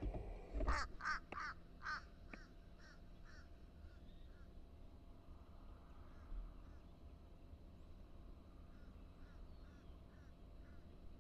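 Crow cawing in a fast run of calls, about three a second, loudest at first and fading away, with fainter caws again near the end.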